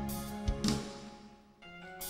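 Live band music: drum kit hits with a cymbal crash that rings away, the band dropping almost to nothing about a second and a half in before a held chord comes in.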